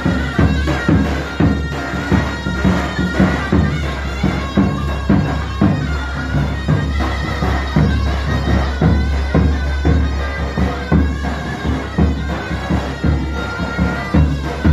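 Traditional folk music: a loud reedy wind instrument holds a shrill melody over a low drone, with a drum beating about twice a second.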